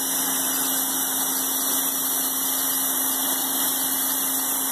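Pressure washer running steadily with an even hum, its spray hissing on the wooden deck boards as it strips off mold and mildew.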